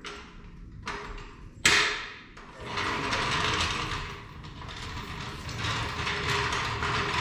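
Mechanical work noise: a sharp knock about a second and a half in, then steady clattering mechanical noise.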